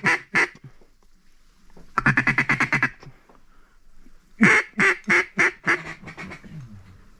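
Mallard duck call blown in quacks: a quick chattering run about two seconds in, then a string of loud quacks from about four and a half seconds in that taper off in volume.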